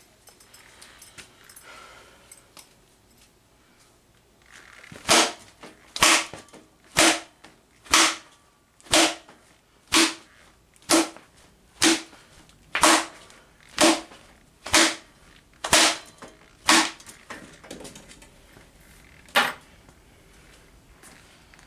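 A run of sharp, loud cracks, evenly spaced about once a second, twelve in a row, then one more after a short pause, each with a brief low ring.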